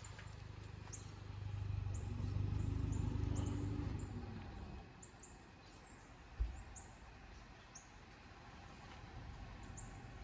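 A bird chirping, with short, very high chirps repeated irregularly against outdoor background noise. A low rumble swells and fades in the first half, and there is a single thump a little past the middle.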